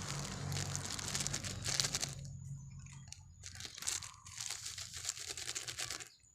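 Thin plastic bag being handled and torn open, crinkling and rustling in irregular bursts.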